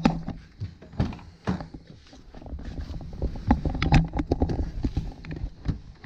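Scattered footsteps, clicks and knocks of a person climbing into a car, with handheld camera handling noise.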